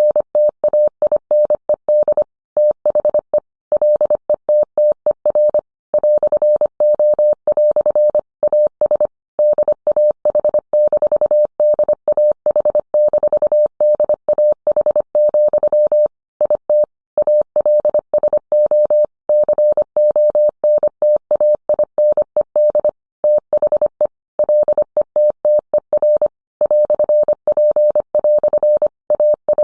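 Morse code sent as a single steady mid-pitched tone, keyed on and off in quick short and long elements (dits and dahs), with brief gaps between characters and words.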